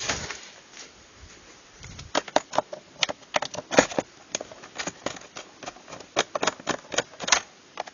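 Keys of a 1991 Key-Tronic membrane keyboard being typed on, a quick irregular clatter of key clicks that starts about two seconds in.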